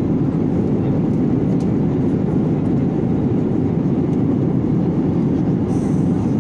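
Steady low drone of a jet airliner heard from inside the cabin on the approach to landing: engine and airflow noise. A faint high hiss joins near the end.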